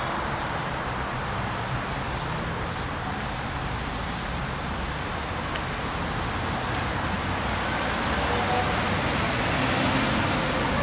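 Steady background road traffic noise from city streets, a continuous rumble that grows a little louder near the end.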